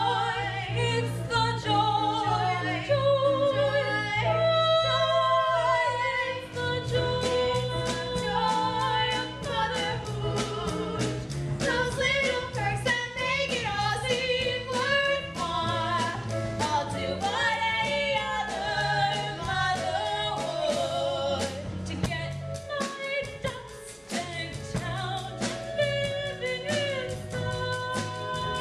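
Musical theatre singing with accompaniment: voices hold a long, wavering note over a sustained chord, then about six seconds in a fast, busy accompaniment with a quick beat takes over, with singing coming and going over it.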